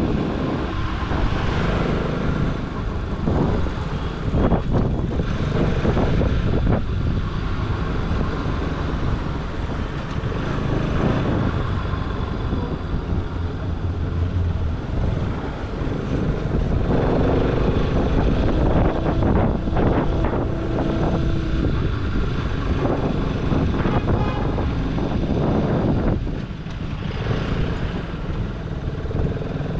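Motorcycle running steadily on the move, with road and wind noise.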